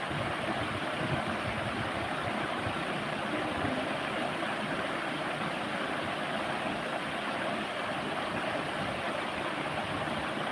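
Steady rushing air noise of a room ceiling fan running, even and unbroken.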